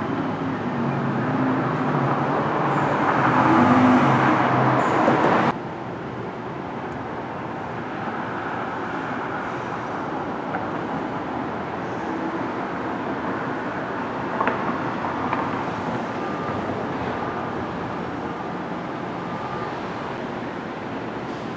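Outdoor traffic noise: a vehicle engine is loudest for the first five seconds or so and stops abruptly, then steady road noise continues, with a single short click about fourteen seconds in.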